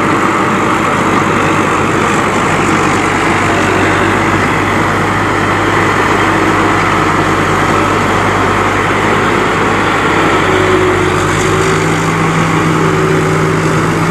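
Diesel engine of a rice combine harvester running steadily in the field. About ten seconds in, its note rises.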